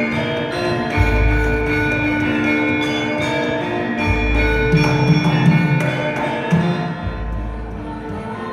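Javanese gamelan music: ringing metallophone tones layered over one another, with a deep low stroke about every three seconds.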